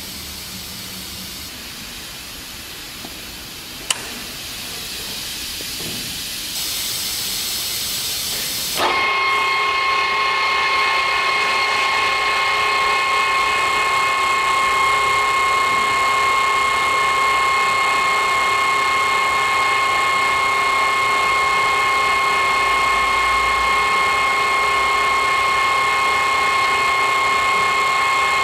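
Wilton 2456 geared-head pneumatic drill press: air hissing that gets louder in steps, with a sharp click about four seconds in. About nine seconds in, a steady mechanical whine made of several fixed tones starts suddenly, as the machine's drive runs.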